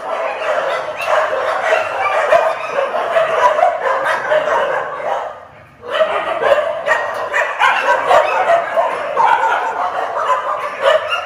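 Many kennelled dogs barking and yipping at once, a dense overlapping chorus that cuts out briefly about halfway through.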